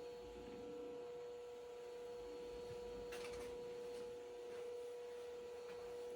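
Faint steady hum: one held tone with fainter overtones above it, and a soft click about three seconds in.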